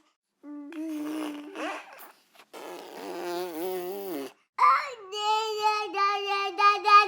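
Baby babbling and cooing: several drawn-out vocal sounds separated by short pauses. The last is a long, high, steady one with small catches in it.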